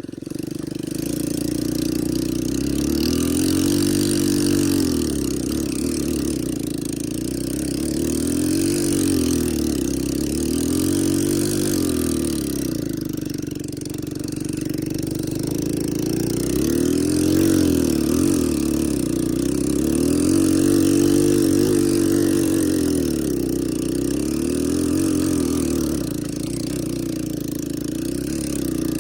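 ATV engine running and being revved up and down over and over, the pitch rising and falling about every two seconds.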